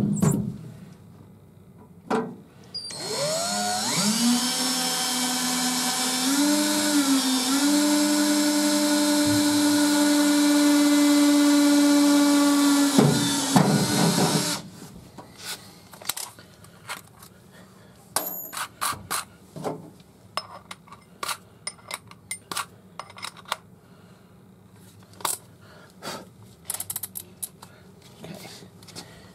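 Electric drill spinning up and boring a seat-belt anchor hole through the truck's floor. It runs steadily for about ten seconds, with a brief wobble in pitch partway, then stops. Scattered light clicks and taps follow.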